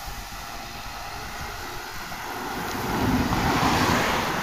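Wind rushing over the microphone with road noise while riding a road bicycle on a street, growing louder around three seconds in.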